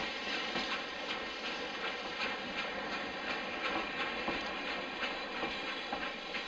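Diesel rail motor running along the track: a steady running noise with many irregular clicks from the wheels on the rails.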